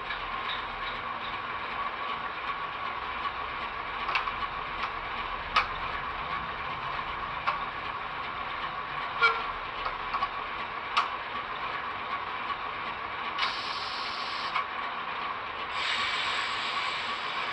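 Sound-fitted Bachmann Class 08 shunter model idling: the DCC sound decoder plays a diesel shunter's idle through the model's small speaker, with scattered clanks and rattles. A hiss comes in for about a second some 13 seconds in, and again near the end.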